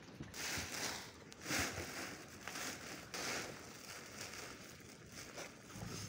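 Woven plastic feed sack crinkling and rustling as it is handled, in short bursts about once a second.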